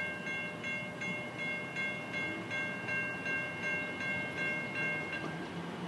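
Railroad grade crossing bell ringing, about three strikes a second, then stopping about five seconds in.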